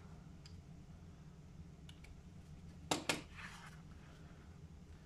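A sheet of stiff gasket paper and a plastic bag being handled: a few faint ticks, then a brief crackling rustle about three seconds in, over a faint low hum.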